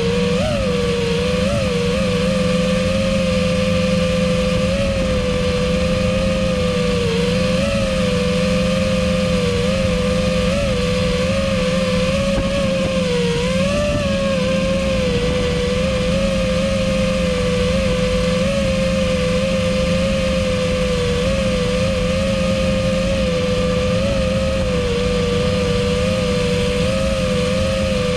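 FPV quadcopter's four Emax ECO 2207 1900kv brushless motors spinning HQ V1S props, a steady whine whose pitch wavers a little with small throttle changes as the drone cruises slowly.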